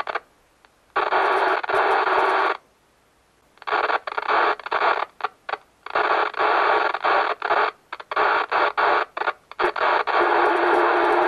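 Sunker Elite Three CB radio's loudspeaker hissing with receiver static that cuts in and out in abrupt, choppy bursts as its automatic squelch opens and closes. Near the end the squelch stays open and the hiss runs on steadily, with a low steady tone beneath it.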